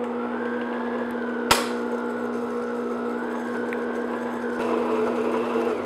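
Stand mixer motor running steadily on low speed, its flat beater working flour into cake batter in a glass bowl. There is one sharp click about a second and a half in, and the motor stops just before the end.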